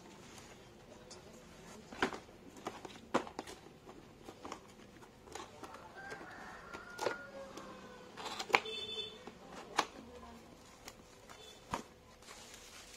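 Cardboard box and paper inner packaging being handled and opened by hand: scattered taps, rustles and scrapes, with a sharper click about eight and a half seconds in.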